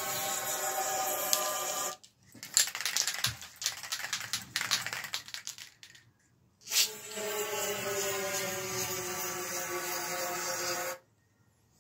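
Aerosol wax oil sprayed through a nozzle into a bike frame's tubes: a steady hiss, then a few seconds of sputtering crackle, a short pause, and another steady hiss that cuts off about a second before the end.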